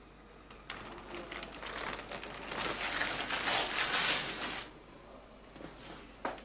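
Crinkling cellophane wrapping of a flower bouquet, a crackly rustle lasting about four seconds as the bouquet is handled and set down, loudest in the middle.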